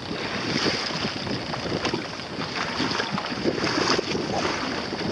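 Water rushing and splashing against the hull of a small sailboat under way through choppy sea, with wind buffeting the microphone.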